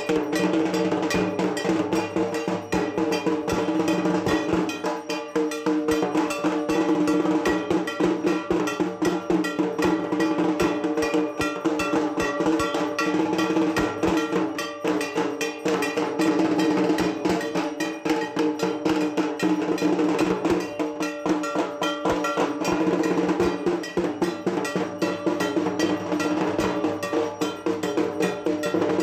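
Fast, continuous metallic percussion: rapid bell-like strikes at a steady pace over a ringing tone.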